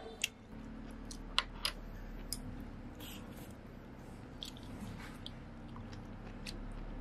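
Eating from a pot of noodle soup: scattered light clinks of a metal spoon and chopsticks against the stainless steel pot, with quiet chewing between them.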